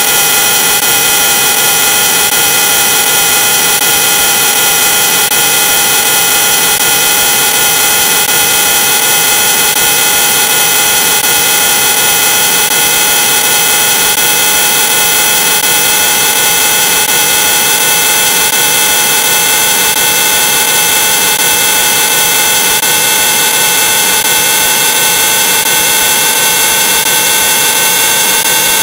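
Heavily distorted, effects-processed audio: a loud, harsh, unbroken noise with several held tones in it that creep slightly upward in pitch.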